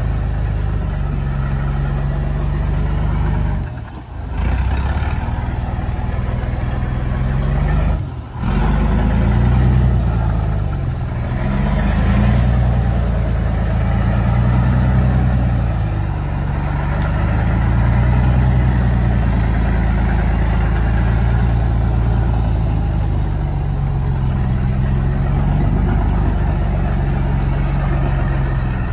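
Engine of a heavily loaded modified truck working, its low note rising and falling as it labours, with two brief sudden drops in level about four and eight seconds in.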